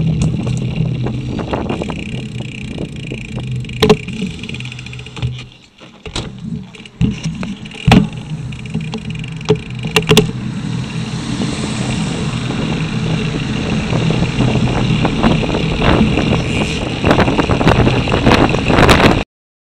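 Riding noise picked up by a bicycle-mounted action camera: wind rushing over the microphone and rattling knocks as the bike rolls over bumps. A low engine hum from nearby traffic fades out about five seconds in. The wind noise grows heavier after about ten seconds, and everything cuts off suddenly just before the end.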